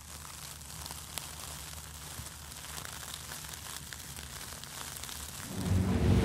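Faint crackling hiss with scattered small ticks. About five and a half seconds in, a motorboat engine comes in loud and low, running steadily.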